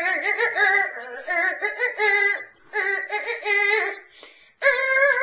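A child singing in a high voice: several short phrases, then a long held note near the end.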